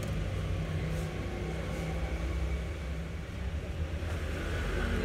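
A steady low rumble with a faint hum underneath, over light rustling of loose copper winding wire being sorted by hand.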